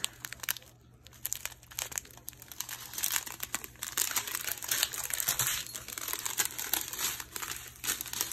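Clear plastic bags of diamond-painting drills crinkling and rustling as they are handled and sorted, with a brief lull about a second in.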